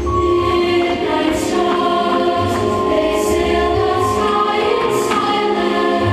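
Recorded music with a choir singing long held chords over a low, recurring beat.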